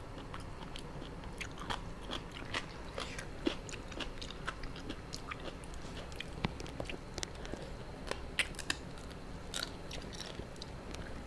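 A person chewing and crunching spicy seafood papaya salad close to the microphone: a steady run of irregular crunches and clicks.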